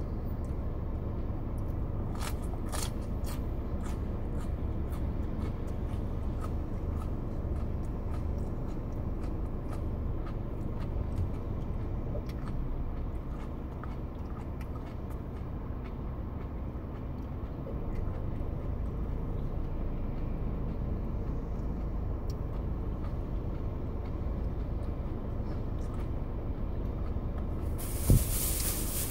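Steady low rumble of a car heard from inside its cabin, the engine and fan running while parked. Near the end a sharp thump, then a brief rush of hiss.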